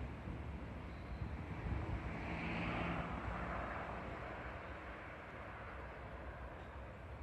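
Engine rumble of a passing vehicle, swelling about two seconds in and slowly fading.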